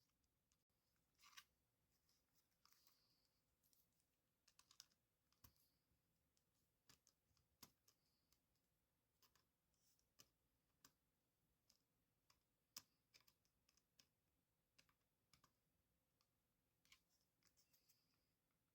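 Faint, scattered small clicks and a few short scrapes: small parts and tools being handled on a DJI Mini 4 Pro drone arm and hinge during reassembly.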